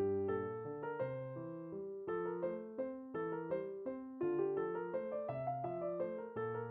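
Background piano music: a light, gentle tune of separate notes.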